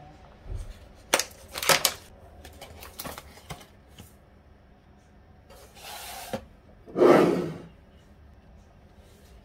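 Kitchen handling sounds while measuring out instant dry yeast: sharp clicks and rustles of the plastic yeast packet and small bowl on the scale, then, about seven seconds in, the loudest sound, a short rush of yeast granules poured into a glass bowl of flour.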